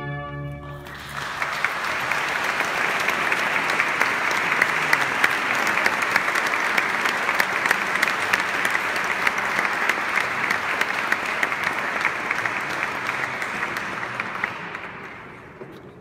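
A held final chord of the ensemble ends within the first second. Audience applause follows: many hands clapping, building quickly, holding steady, then dying away near the end.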